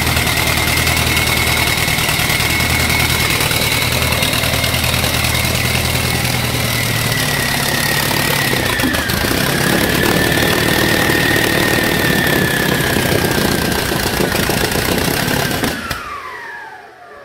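Turbocharged Rover Meteorite Mk 204 V8 engine running steadily, with a high whine over the engine note. About sixteen seconds in it shuts down, and the whine falls away in pitch as it winds down.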